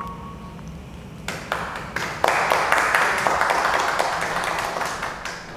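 Small audience applauding: a few scattered claps about a second in, quickly swelling into steady applause that slowly dies away near the end.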